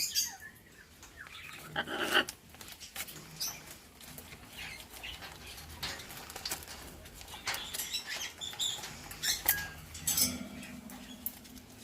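Scattered clicks, taps and rustles of a pet monkey pawing at the phone, with short faint chirps of caged birds.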